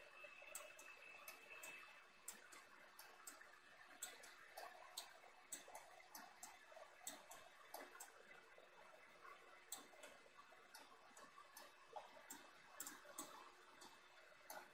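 Near silence with faint, irregular computer mouse clicks, about two a second.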